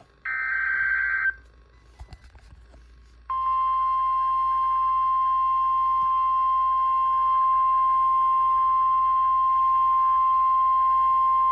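The last of the three buzzy SAME digital header bursts of a NOAA Weather Radio alert sounds in the first second. After a short pause, the steady single-pitch 1050 Hz warning alarm tone starts about three seconds in and holds unbroken; it signals that a warning broadcast, here a tornado warning, is about to follow.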